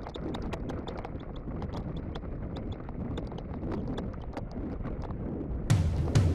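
Mountain bike riding over a rough trail: a stream of irregular clicks, knocks and rattles over a low rumble of wind on the microphone. A track with a heavy drum beat cuts back in near the end.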